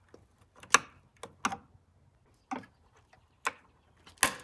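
Flat-blade screwdriver tapping and prying at a small plastic access cover on a minivan's painted metal rear pillar: about six sharp, irregular clicks and knocks.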